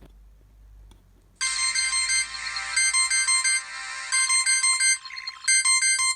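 A preloaded ringtone playing through the small speaker of an Alcatel OT-660 flip phone: a bright electronic melody of several notes at once starts about a second and a half in, and it cuts off right at the end.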